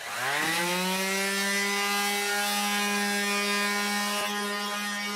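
Black+Decker square-pad palm sheet sander switched on, its motor spinning up in under a second to a steady buzzing run while sanding a plywood panel with 150-grit paper.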